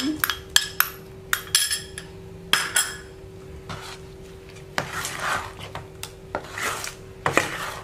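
A metal spoon clinks several times against the bowls as chopped spring onions are scraped into the batter. From about halfway it turns to scraping and squelching as the spoon stirs the thick batter around a stainless steel mixing bowl.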